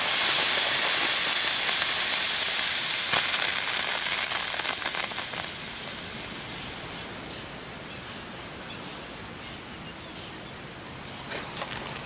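Coloured firework burning with a strong, steady hiss that dies away about six or seven seconds in, followed by a few faint crackles near the end.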